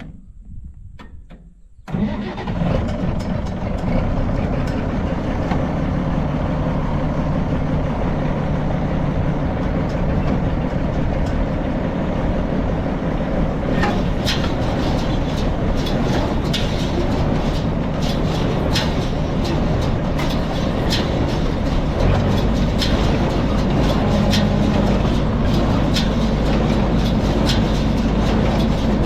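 About two seconds in, a tractor engine starts suddenly and then runs steadily. From about halfway, quick clattering knocks join the engine.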